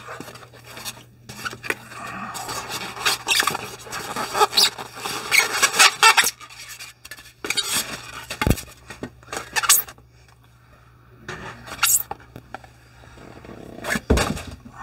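Cardboard gift box being opened and paper wrapping pulled off a set of shot glasses, with dense rustling and scraping, then a few sharp knocks.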